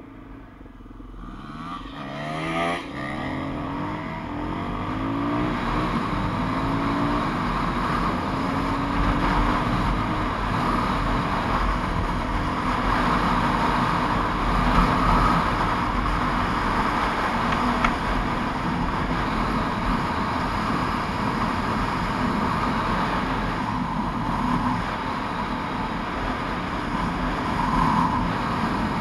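Motorcycle engine pulling away and revving up through several gear changes in the first few seconds, then running steadily at road speed, with wind noise on the microphone.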